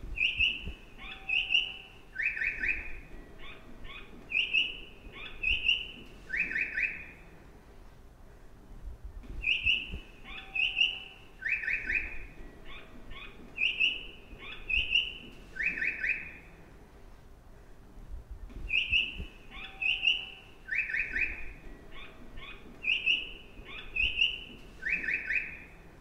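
Recorded birdsong chirps of the kind Japanese train stations play to mark stairs for vision-impaired passengers. The same phrase of chirps loops about every nine seconds, with a short pause between repeats, over a faint low rumble.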